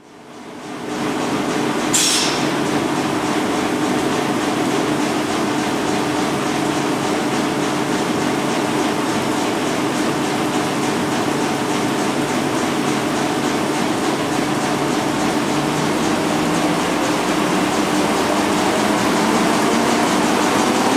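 Müller Martini Progress two-colour web offset printing press running: a steady, continuous mechanical din with a droning hum. It fades in over the first second, has a brief hiss about two seconds in, and its pitch edges slightly upward near the end.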